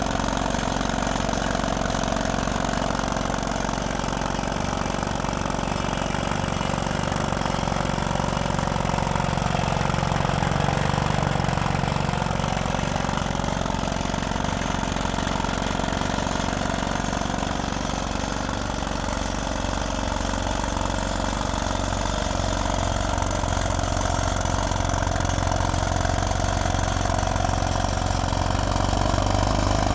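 Crawler drill machine's engine running steadily, its pitch sagging slightly about ten seconds in and then recovering.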